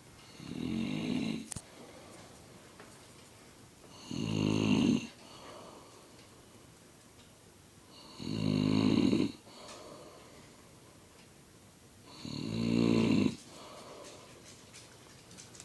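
A sleeping man snoring: four loud snores, each about a second long, coming about every four seconds, with faint breathing between them.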